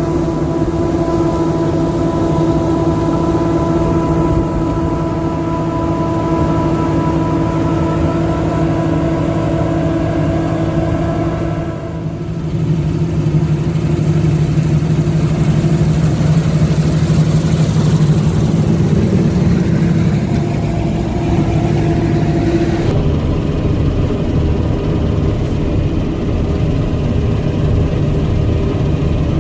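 Claas Lexion 540 combine harvester running while threshing wheat: a steady engine drone with several whining machinery tones over it. The tone shifts about twelve seconds in, and the high hiss drops away about two-thirds of the way through.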